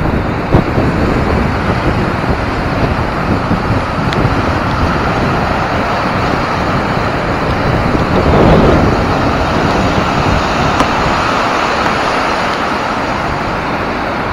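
Waves washing in over slushy shore ice on a lake, with wind buffeting the microphone: a steady, loud rushing noise, with one louder surge about eight seconds in.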